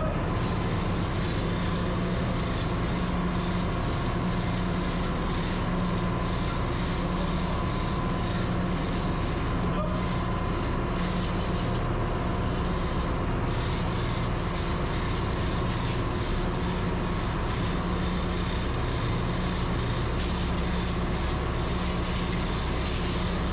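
Steady, constant drone of running machinery in a ship's engine room, with a low hum and a faint steady tone above it.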